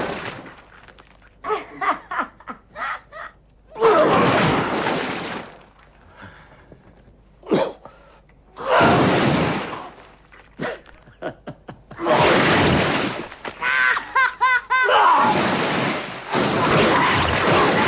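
Projectile vomiting sound effect: several long wet gushing splatters, each lasting one to two seconds, with short sharp smacks and drips in between. A brief wavering pitched sound comes about two-thirds of the way through.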